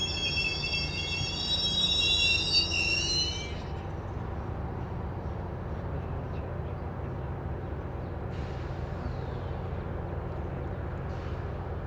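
GO Transit bilevel passenger coaches rolling past: a high-pitched wheel squeal that stops suddenly about three and a half seconds in, over a steady low rumble of the wheels on the rails.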